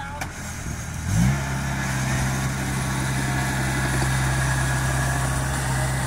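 Rice combine harvester's engine running; about a second in it revs up briefly and then holds a steady, louder working speed.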